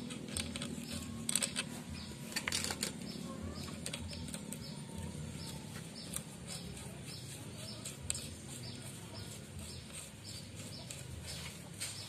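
Small metallic clicks and taps of a thick washer and nut being fitted by hand onto a shaft end of a motorcycle engine's right side, busiest in the first few seconds, over a steady low hum.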